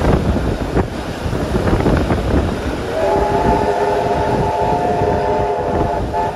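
Steam locomotive whistle sounding one held, chord-like blast of about three seconds, starting about halfway in and cutting off near the end, over the steady rumble of the train.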